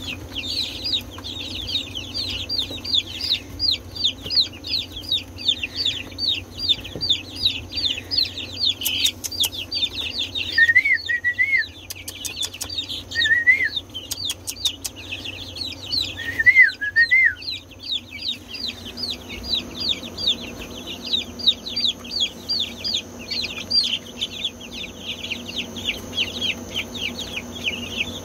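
A brooder full of chicks peeping continuously, many short falling chirps several a second overlapping one another. Between about ten and seventeen seconds in, a few lower wavering trills stand out from the peeping.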